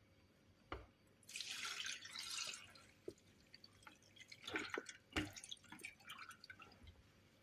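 Liquid pouring in a brief stream, then a run of splashes, drips and light knocks against a container, with a single knock just before the pour.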